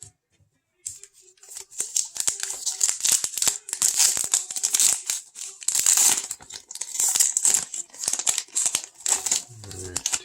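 Crinkling and tearing of a trading-card pack wrapper being opened by hand, with the cards inside shuffled and handled. It is an irregular, dense crackle that starts about a second in and carries on without a break.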